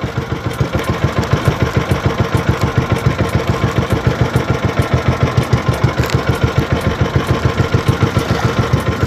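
Small engine of a motorised bangka outrigger boat running steadily under way, with a fast, even putter.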